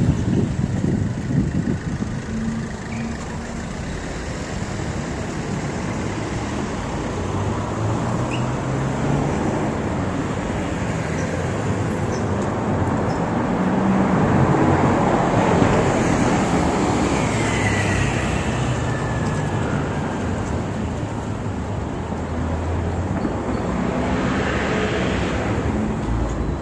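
Street traffic: motor vehicles running and passing, with engine and tyre noise. One pass swells loudest about halfway through, and another comes near the end.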